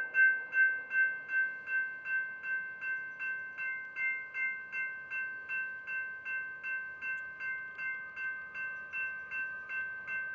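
Railroad grade-crossing warning bell ringing steadily, about three strikes a second, growing a little fainter: the crossing signals are active for an approaching train.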